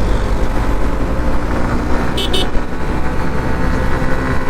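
Heavy wind and road rumble on a moving motorcycle at highway speed, with the steady drone of engines underneath. A vehicle horn gives two short beeps about two seconds in.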